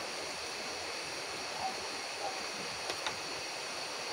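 Steady rushing of a river, with a couple of faint clicks about three seconds in.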